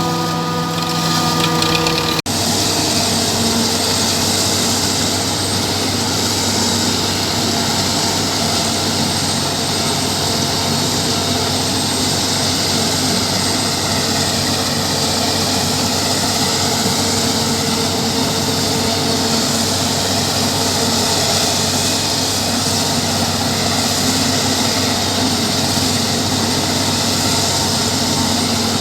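Jaguar self-propelled forage harvester running steadily while making silage: a loud, even engine hum under a strong hiss. About two seconds in, the sound changes abruptly from a steady whine of several tones.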